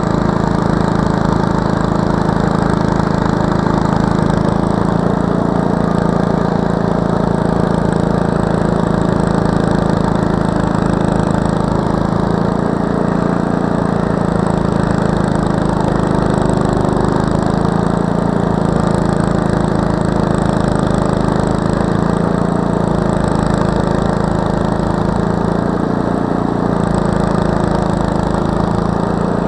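Snowblower engine running steadily under load while the machine throws snow out of its chute.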